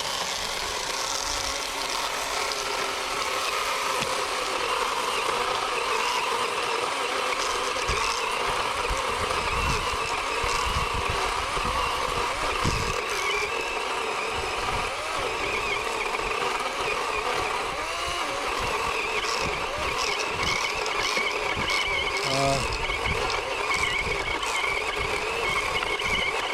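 Worx WG384 40-volt cordless electric chainsaw with an upgraded 18-inch Oregon bar cutting steadily through a fallen tree trunk, its motor and chain making a continuous whine.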